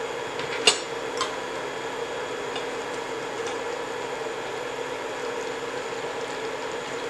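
Oil and coconut milk sizzling steadily in a pan over a constant hum, with two short utensil clinks about a second in.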